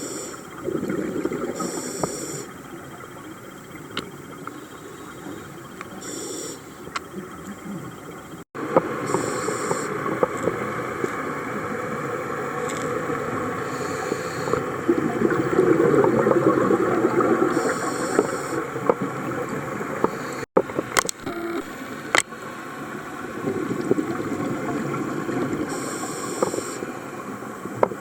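Underwater camera audio of a scuba diver breathing through a regulator: short hissing inhalations recurring every few seconds, with rumbling exhaled bubbles between them. The sound drops out sharply twice where the footage is cut.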